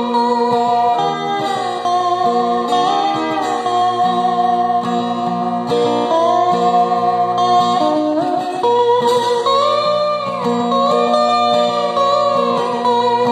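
Bulbul tarang (Indian banjo), a keyed string zither, picked to play a melody of held, wavering notes over steady lower notes.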